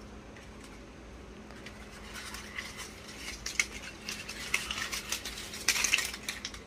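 Rolled paper banknotes rustling and crinkling as they are pulled off a pineapple's stiff crown leaves, a run of crisp rustles and clicks that starts about two seconds in and is loudest near the end.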